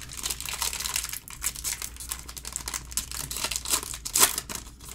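Foil wrapper of a trading-card pack being torn open and crinkled by hand, with a sharp louder rip about four seconds in.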